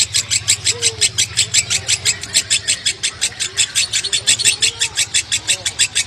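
Fischer's lovebird giving a long, unbroken 'ngekek' chatter, a fast run of sharp high chips at about six a second, of the kind bird-keepers call konslet.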